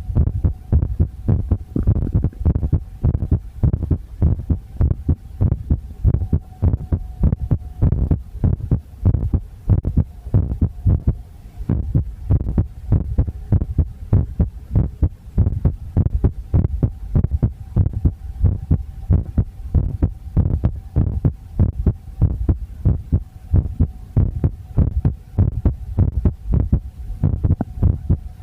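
Human heartbeat picked up close to the body: a steady run of low, dull lub-dub thumps, with a faint steady hum underneath.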